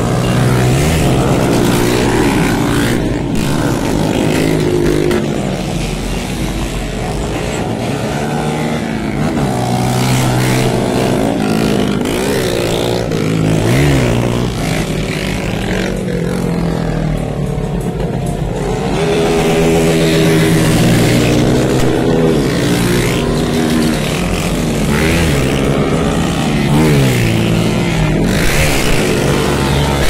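Several small street motorcycles revving up and down again and again as they ride past. The engine pitch rises and falls repeatedly, with several engines overlapping.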